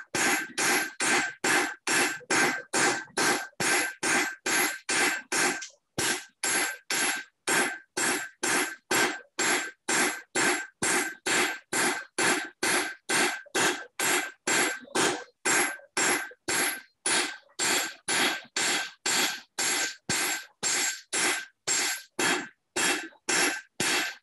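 Hand hammer striking hot steel on an anvil in a steady rhythm of about two to three blows a second, with a brief break about six seconds in. Each blow carries a ringing anvil tone. The steel is at working heat and being thinned out to form a candle snuffer's cup.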